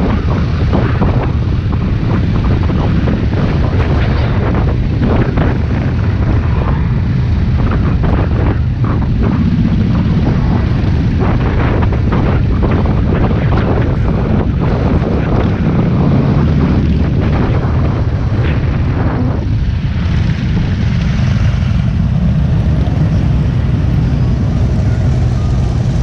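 Motorcycle engines running in a steady low drone while riding among a long line of motorcycles, with wind buffeting the microphone in frequent short gusts.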